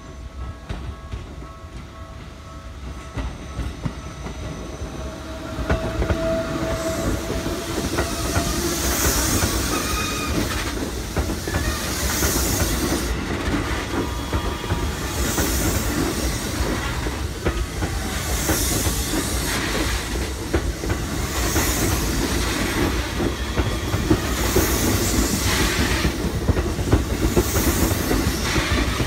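Keikyu 2000 series electric train approaching and passing close by. Its running noise swells about six seconds in, and its wheels clatter over rail joints in a regular rhythm about every second and a half as the cars go past.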